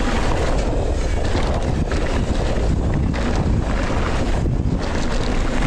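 Wind buffeting the microphone as a downhill mountain bike runs fast down a dusty gravel track, with the tyres rolling over dirt and rocks and the bike rattling and knocking over the rough ground.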